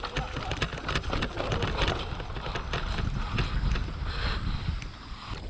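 Wind buffeting the microphone of a camera on a mountain bike descending a dry, rocky dirt trail, over a rapid, uneven clatter of the bike rattling across rocks and roots.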